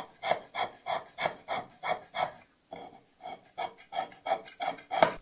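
Hand scraper cutting a bearing pattern into the sliding surface of a Schaublin 102 compound slide's lower part: quick, even scraping strokes at about four a second, a short pause near the middle, then another run of strokes.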